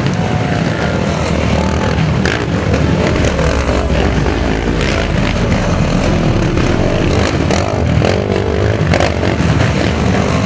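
Racing ATVs' four-stroke engines revving and pulling, the pitch rising and falling with the throttle as the quads pick their way through tight woods. Sharp knocks and cracks are mixed in several times.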